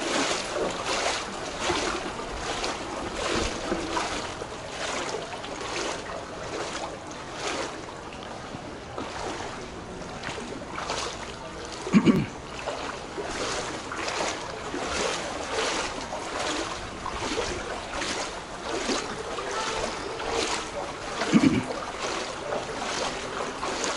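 Footsteps wading through floodwater over a paved alley, splashing about twice a second in a steady walking rhythm. Twice, about halfway through and again near the end, a short low thump stands out as the loudest sound.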